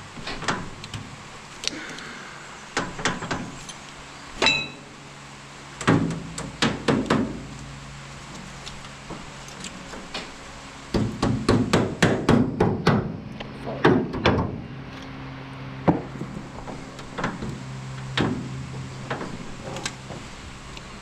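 Irregular clusters of sharp metal knocks and clanks, hammer-like blows on the steel frame of a New Idea 323 corn picker's husking bed, densest in a run partway through; one blow about four and a half seconds in rings briefly.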